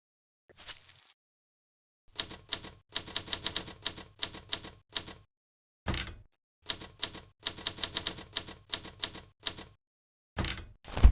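Typewriter typing sound effect: runs of rapid mechanical key strikes with short pauses, a single heavier strike about six seconds in, and two heavier strikes near the end.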